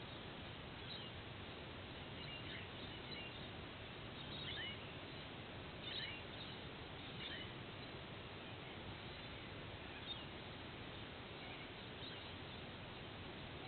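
Faint, scattered short high bird chirps, a few every second or two, over a steady background hiss.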